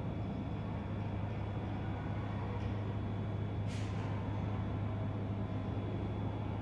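Steady low hum and background noise, with one faint short scratch about four seconds in, as a marker draws on the board.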